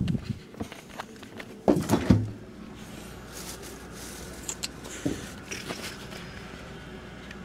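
A few loud knocks and handling thumps about two seconds in, then a steady low hum with scattered light clicks as a refrigerator door is opened.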